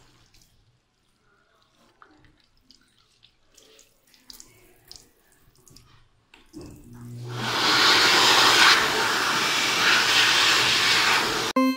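Faint trickle of a sensor tap over soapy hands, then about six seconds in a sink-mounted hand dryer starts up with a brief motor hum and blows a loud, steady rush of air for about five seconds, cutting off just before the end.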